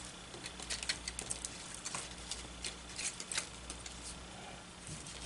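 Faint crinkles and small clicks of paper cardstock being folded and handled by hand, scattered irregularly, over a steady low hum.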